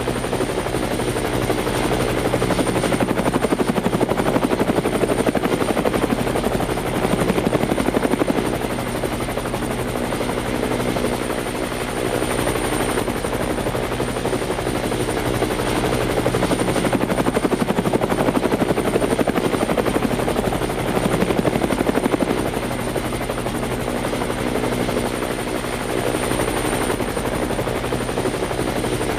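Helicopter flying: fast, even rotor chop over a steady engine drone with a thin high whine, swelling and easing slightly in loudness every few seconds.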